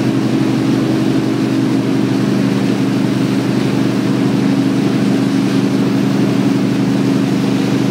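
Motorboat engine running steadily under way, a low even drone, with the rush of the boat's churning wake.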